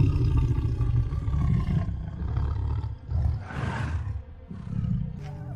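Tiger growling low and loud for about three seconds, then a short breathy rush of noise about three and a half seconds in, followed by a quieter low growl.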